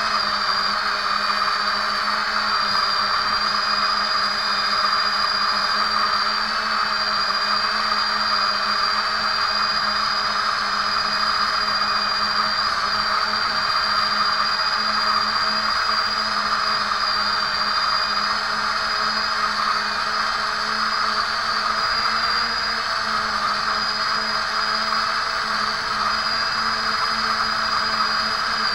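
Small brushless quadcopter motors and propellers whining steadily in flight, heard close up from on board the drone.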